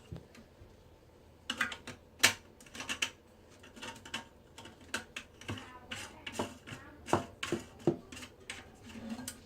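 Irregular light clicks and taps of hard plastic toilet fill-valve parts being handled as the white plastic nut is threaded onto the valve's shank, starting about a second and a half in.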